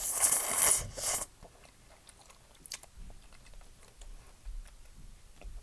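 A person eating udon noodle soup close to the microphone: a loud rush of noise in two pulls over about the first second, then faint chewing and mouth clicks.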